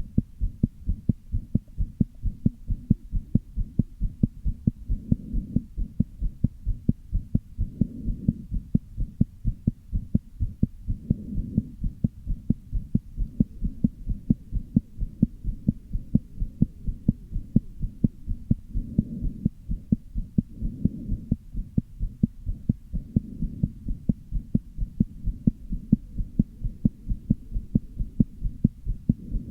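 Heartbeat: a continuous run of dull thumps, two to three a second, with a heart murmur and arrhythmia, as the uploader describes it.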